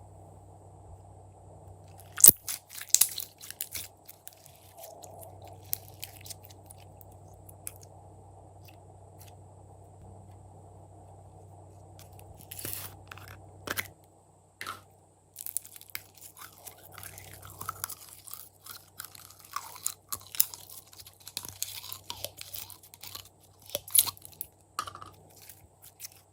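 Glossy slime being handled and mixed by hand, making bursts of crackling clicks and pops. The clicks come in short clusters at first and become almost continuous from the middle on. A steady low hum runs underneath.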